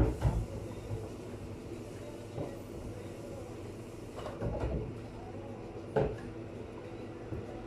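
Scattered knocks and clatter of kitchen work over a steady machine hum.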